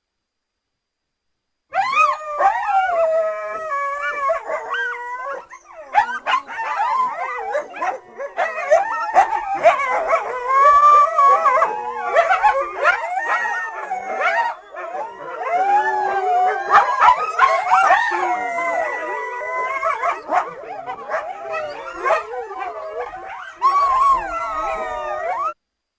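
A pack of coyotes howling and yipping together, with many wavering, overlapping calls rising and falling in pitch. The chorus starts about two seconds in and cuts off suddenly near the end.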